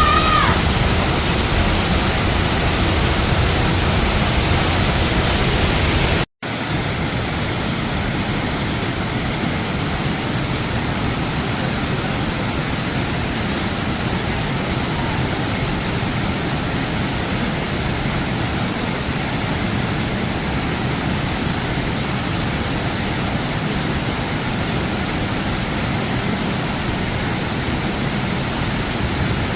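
Waterfall rushing, a steady, loud hiss of falling water. The sound drops out for an instant about six seconds in, then carries on slightly softer.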